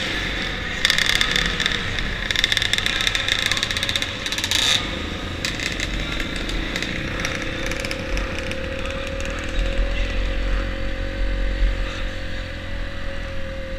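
Flat-track motorcycle engine heard from the bike's onboard camera, running loud at speed for about the first five seconds. It then eases off suddenly to a quieter, steady low-speed run as the bike rolls slowly.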